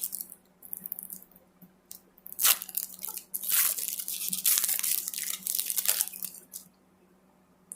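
Foil wrapper of a trading card pack being torn open and crinkled: a run of crackly rustles lasting about six seconds, stopping shortly before the end.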